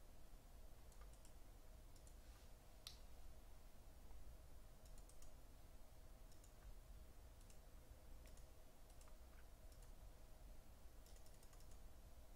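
Near silence: room tone with faint, scattered clicks.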